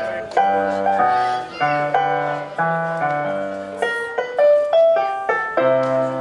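Digital piano played live: a melody over low bass notes, the notes struck about twice a second and each fading away.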